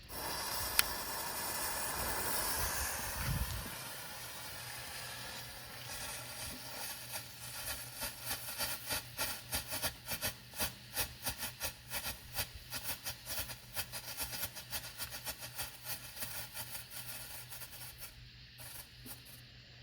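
Two strobe pot fireworks burning: a loud hiss for the first few seconds, then a long run of sharp, irregular crackling pops, several a second, as they strobe, thinning out near the end.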